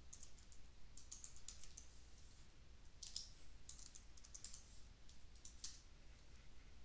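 Faint typing on a computer keyboard, in several short runs of keystrokes as a web search is typed in.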